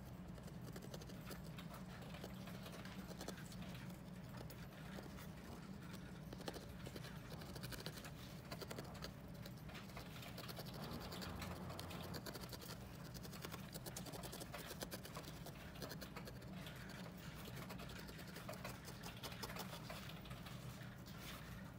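Felting needle stabbing rapidly and repeatedly into wool roving over a foam pad: a quiet, dense run of scratchy little pokes, sped up to four times normal speed, over a steady low hum.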